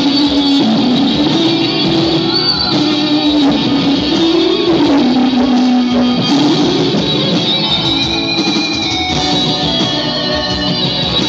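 Electric guitar played live through amplification: a melodic line of held notes that slide and bend up and down in pitch.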